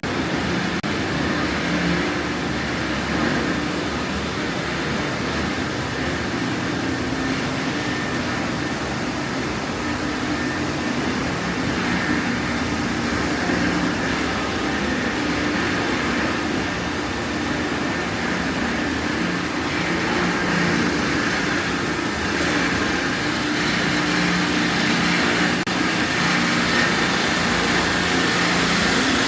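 A machine running steadily: an even drone with a constant hum, without pauses or sudden knocks.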